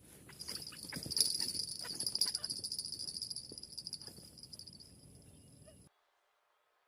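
Steady high-pitched insect drone with a run of short sharp clicks or calls over it; it fades and then cuts off suddenly near the end.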